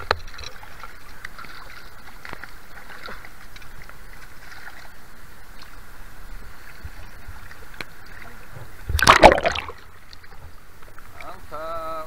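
Flowing river water heard close to a camera held at and just under the surface, with a sudden loud splash about nine seconds in. A brief voice sounds near the end.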